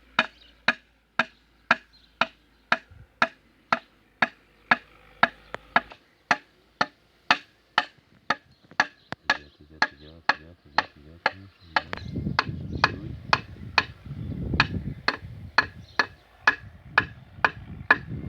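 Steady hammer tapping, about two sharp ringing strikes a second, of a piston being driven through a ring compressor into a cylinder liner of a Niva SK-5 combine engine. A low rumble joins in past the middle.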